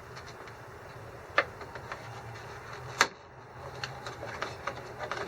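Scattered clicks and knocks of plastic trim and parts being handled on a pickup's front end, with two sharper knocks about a second and a half and three seconds in, over a low steady hum.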